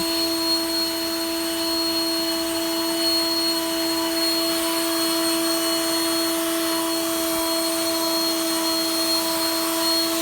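WORX 20V Turbine cordless leaf blower running steadily: a constant whine over a rush of air.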